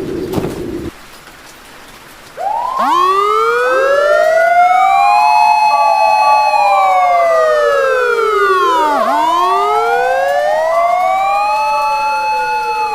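A low hum cuts off about a second in; after a brief hush, several emergency-vehicle sirens start wailing together, their rising and falling tones overlapping.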